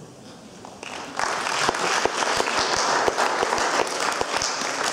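Audience applauding, starting about a second in and building to a steady patter of many claps.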